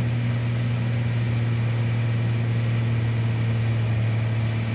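Piper Cherokee 235's six-cylinder Lycoming O-540 engine and propeller running steadily at cruise power, set to 2200 RPM and 21.5 inches of manifold pressure.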